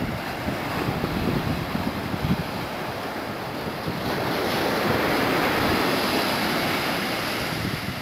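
Atlantic Ocean surf washing up the beach, a hiss that swells about halfway through and eases off near the end, with wind buffeting the microphone in gusts, loud at times.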